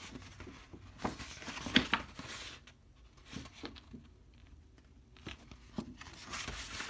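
A rolled paper poster being unrolled and handled, the stiff paper crinkling and rustling in several short spells, quieter through the middle.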